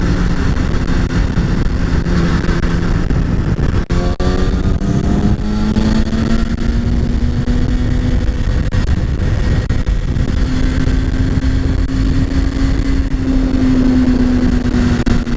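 Sport motorcycle engine running at road speed under heavy wind rush. About four seconds in, the engine note climbs as the bike accelerates, then holds steady at the higher pitch.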